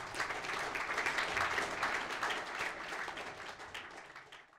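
Audience applauding, a dense clatter of many hands that fades out near the end and then cuts off.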